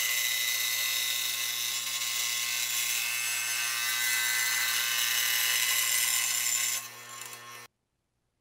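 Scroll saw cutting quarter-inch plywood: a steady motor hum under a high, hissing cutting noise. It drops in level near the end, then cuts off suddenly.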